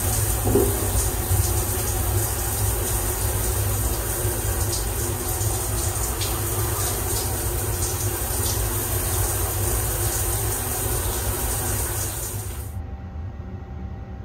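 Handheld shower spraying water against a stainless steel wall in the timed shower cubicle of the Sunrise Express sleeper train, over the low rumble of the moving train. The spray cuts off abruptly near the end, leaving only the train's rumble.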